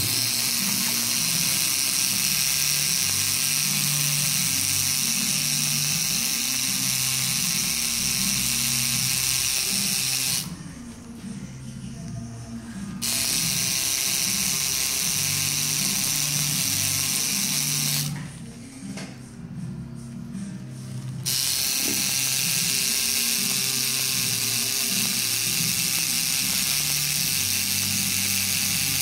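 Electric tattoo machine buzzing steadily as it works ink into skin. It stops twice for a few seconds, about a third of the way in and again past the middle, then starts again.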